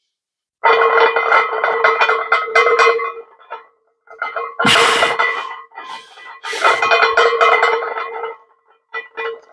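Background music with a steady held note, cut off in short gaps, and one sharp, loud noise about five seconds in.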